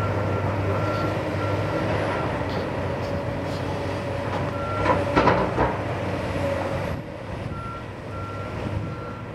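Hydraulic excavator's diesel engine running steadily, with a backup alarm beeping about twice a second in runs near the start and end. About five seconds in comes a short clatter of brick debris, and the engine eases off a little after about seven seconds.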